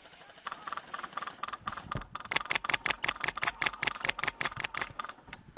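Airsoft rifles firing rapid strings of shots, a quick mechanical clatter of about eight shots a second, faint at first and much louder from about two seconds in.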